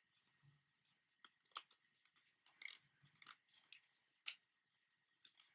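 Faint, irregular crinkles and clicks of a sheet of folded origami paper being creased and handled between the fingers.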